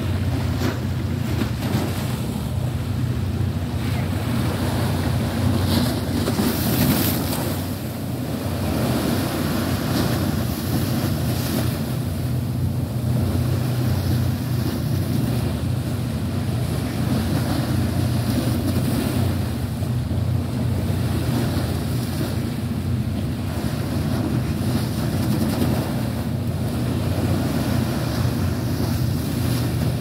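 Wind-driven choppy sea water, with strong wind buffeting the phone's microphone as a steady low rumble and a few stronger gusts.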